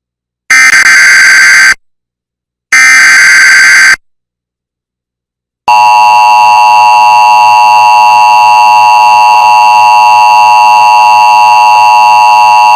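Emergency Alert System activation for a severe thunderstorm warning. Two bursts of SAME header data, each about a second long, sound as digital warbles. The steady two-tone EAS attention signal starts about five and a half seconds in and holds unchanged.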